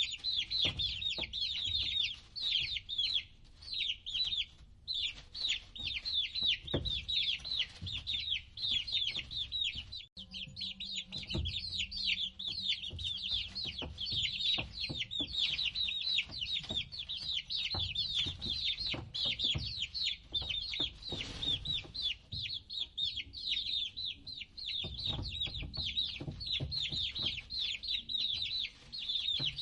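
A group of young chicks peeping without pause: many short, high calls that each fall in pitch, overlapping one another.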